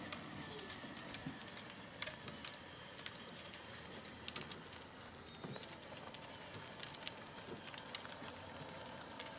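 Faint rolling and clattering of a battery-powered children's ride-on toy jeep and the plastic wagon it tows along a concrete sidewalk, with scattered small clicks and knocks over a steady hiss.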